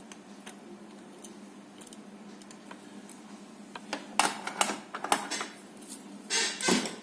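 Sharp clicks and short scraping rasps of tools working on a radio circuit board while a faulty 5 V regulator IC is desoldered, loudest in a cluster about four seconds in and a short burst near the end, over a steady low hum.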